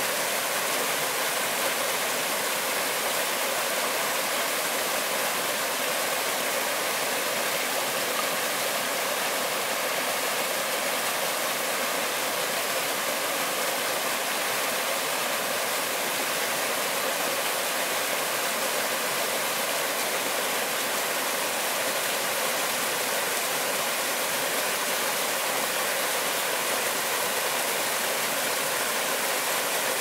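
A small waterfall and rocky stream cascade with a steady rush of water. The sound is an even, bright hiss with little low rumble, unchanging throughout.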